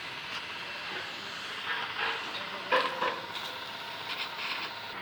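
Gas welding torch flame hissing steadily, with a sharp knock a little past the middle.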